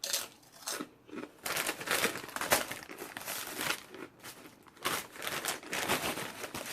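Food packaging being handled: repeated crinkling and rustling in irregular bursts, with some tearing.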